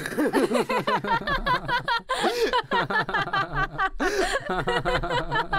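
A man and a woman laughing hard together: a sudden outburst of rapid, repeated laughs that carries on with brief breaks about two and four seconds in.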